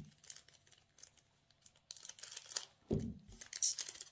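Foil wrapper of a Pokémon trading-card booster pack being torn open and crinkled, starting about two seconds in, with a short dull thump near three seconds.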